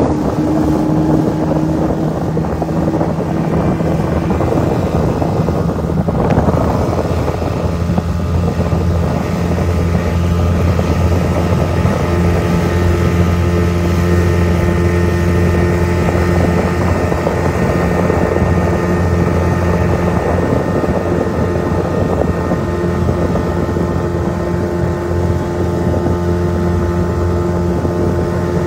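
Speedboat's motor running steadily under way, a constant low drone with a few steady tones, with wind buffeting the microphone.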